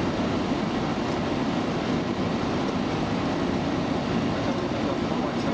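Steady rushing of airflow and jet engine noise inside a Boeing 737 cockpit during the approach, even in level throughout.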